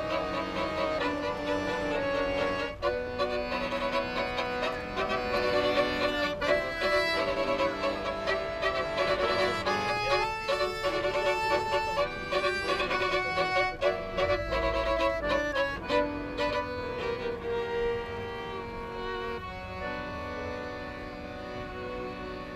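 Violin and piano accordion playing a tune together, the violin leading. The music drops in loudness about two-thirds of the way in and settles into long held notes in the last few seconds.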